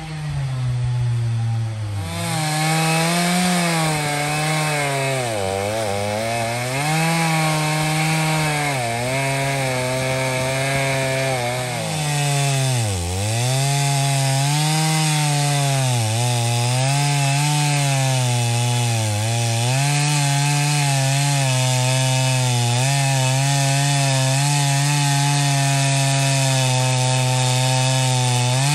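Gasoline chainsaw cutting into a big red oak log, its engine pitch sagging and recovering over and over as the chain bites into the wood.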